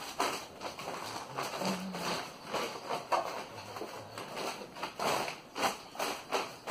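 Aluminium-foil-faced glass wool insulation (Isover Rolac Plata) crinkling and rustling in irregular bursts as it is handled and pressed by hand into a wall cavity between steel studs.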